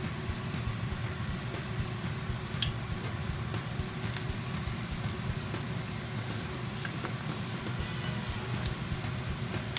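Chicken karaage pieces deep-frying in 160 °C oil in a frying pan: a steady, rain-like crackling sizzle as more pieces go in, with a few light clicks of chopsticks.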